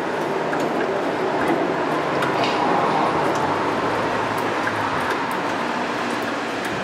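Steady workshop background noise with a few faint metallic clicks as a rear brake caliper bracket is slid up and down to line up its bolt.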